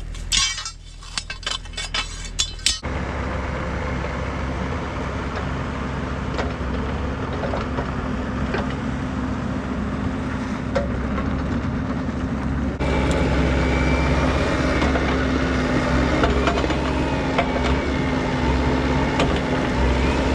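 A few sharp metallic clicks and clanks, then a Bobcat mini excavator's diesel engine running steadily. About two-thirds of the way in it gets louder and a higher whine joins in as the machine works or moves.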